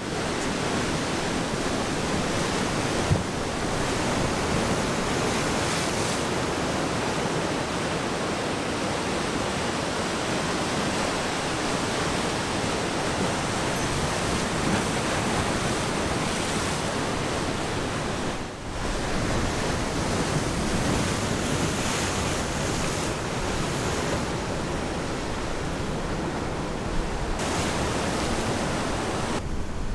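Ocean surf breaking and washing in a steady rush of white water, briefly dropping away about two-thirds of the way through.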